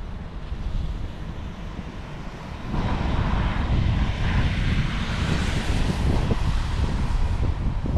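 Street traffic: a vehicle passes close by, its noise rising sharply about three seconds in and staying loud to the end, over a low city background.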